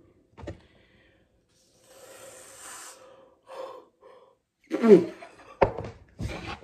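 A woman's breathy, non-speech vocal sounds: a soft exhale, then a short loud exclamation falling in pitch, followed by two sharp knocks.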